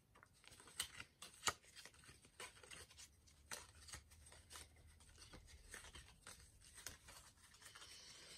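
Faint rustling and scattered small clicks of a Match Attax trading-card pack being torn open and its cards handled.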